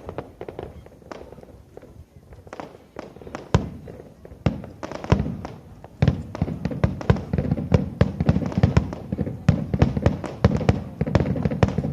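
Aerial fireworks shells bursting: scattered sharp bangs at first, then from about halfway a rapid, dense volley of many bursts overlapping.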